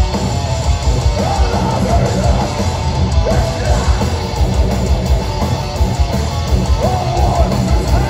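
Metalcore band playing live at full volume: distorted electric guitars, bass and drums. A high lead line rises in pitch and holds, about a second in and again near the end.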